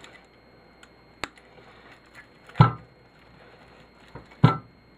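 Metal turntable parts being handled while scrapping: a sharp click about a second in, then two heavy knocks with a short ring.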